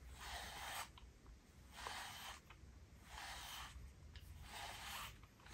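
Cat brush stroking through a cat's fur, a faint brushing sweep repeated about once a second, five strokes in all.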